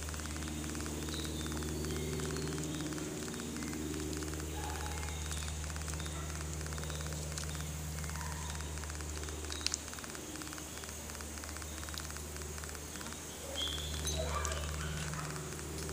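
Outdoor backyard ambience: a steady low hum under a fast, even ticking of insects, with a few short bird chirps and one sharp click a little under ten seconds in.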